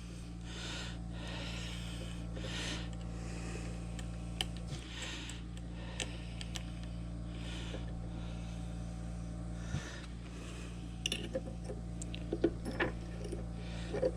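Light metallic clicks and clinks of small steel parts being handled as a collar is set on a key machine's spindle against its bearing, with a few scattered clicks early and a quick run of them near the end, over a steady low hum.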